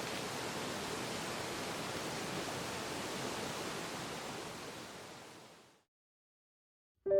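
Steady rushing noise of a waterfall, fading out over the last couple of seconds into silence; piano music begins just at the end.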